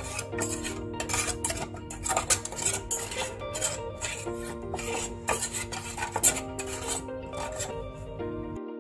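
Small spatula stirring and scraping in a miniature stainless-steel pot of sauce, in quick, uneven strokes that stop near the end. Plucked-string background music runs underneath.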